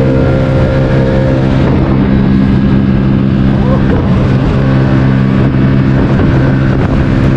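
Sea-Doo Spark personal watercraft running hard in sport mode: a steady engine note over the rush of water and spray, the note wavering briefly about two seconds in.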